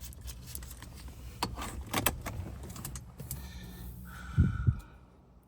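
Car keys jangling and clicking as they are handled, over a steady low hum, followed near the end by a brief tone and two loud low thumps.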